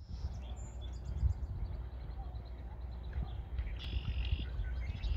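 Wind buffeting the microphone with an uneven low rumble, over small birds chirping. A rapid trill comes about half a second in, and a brighter burst of song about four seconds in.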